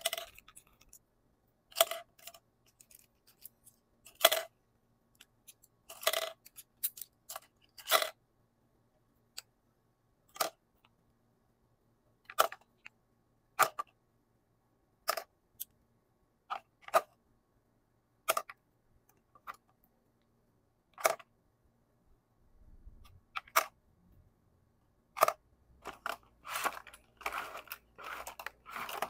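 Makeup brush handles clicking one by one against a plastic brush holder with divider inserts as the brushes are dropped in, a single sharp tap every second or two. Near the end the taps turn into a quick run of clattering and rustling as the brushes are shuffled around in the holder.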